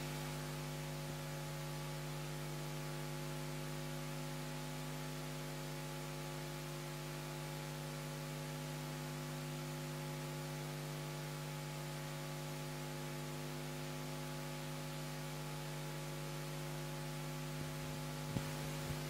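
Steady electrical mains hum, several steady tones over a background hiss, with a few faint clicks near the end.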